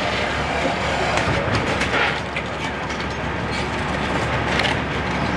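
Steady rumble of an idling vehicle engine, with a few short knocks.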